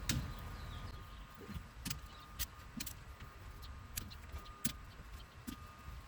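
Scattered sharp clicks, about ten, from a torque wrench as the rear differential cover bolts are tightened to 30 ft-lb in a star pattern.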